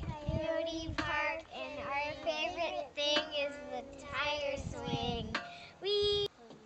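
Several young girls singing together in high, wavering voices, ending on a held note that cuts off suddenly.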